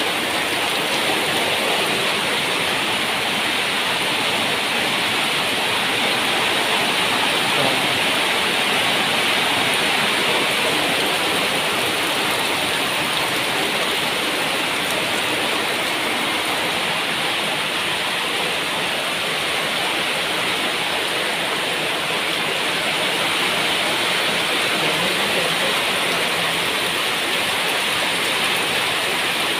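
Heavy downpour, a dense, steady hiss of rain pouring onto corrugated metal roofing and waterlogged ground, without let-up.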